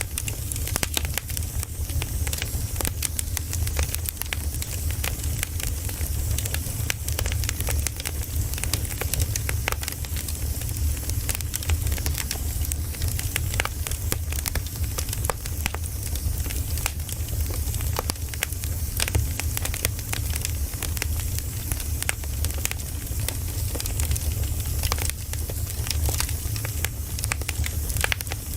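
Campfire burning: a steady run of wood crackles and pops over a continuous low rumble and a soft hiss.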